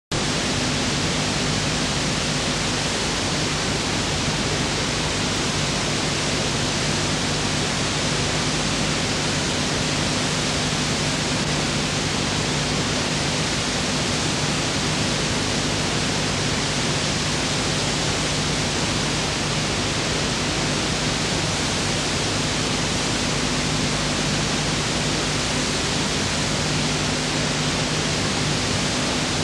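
Steady, fairly loud hiss with a low electrical hum underneath: recording noise from a soundtrack that holds no other sound.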